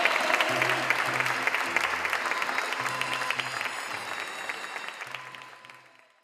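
Theatre audience applauding, with background music and a repeating bass line under the clapping; the sound fades out near the end.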